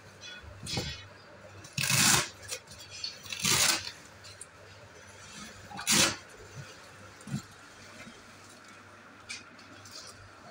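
An insulated delivery bag being handled and opened: three short, loud rustling bursts from the bag's fabric and foil-lined insulation, about two, three and a half and six seconds in, with softer rustles and clicks between.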